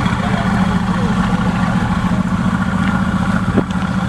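Mercedes-AMG GT S twin-turbo V8 idling steadily, with a single short click near the end.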